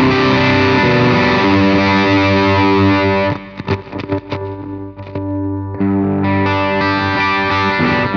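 Electric guitar with humbucker pickups played through a Caline Jaguar Classic High Gain Distortion pedal: distorted chords ringing out, broken about three seconds in by a couple of seconds of short, choppy stabs, then ringing chords again.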